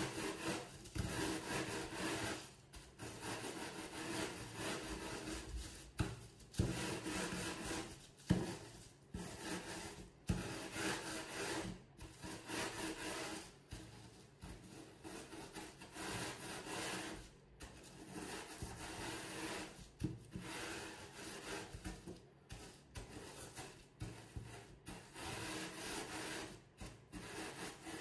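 Wooden rolling pin rolled back and forth over a plastic bag of crumbs on a table, crushing them finer: repeated rubbing strokes, with a few sharp knocks along the way.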